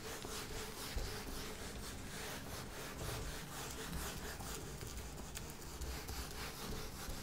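Whiteboard eraser rubbed back and forth across a whiteboard, a run of quick scrubbing strokes as the marker writing is wiped off.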